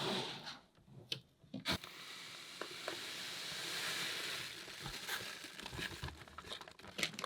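Fine granular aquarium soil powder (Tropica soil powder) poured from its bag into the tank: a steady pouring hiss that swells and fades, with a few crinkles and ticks of the bag and grains before and after.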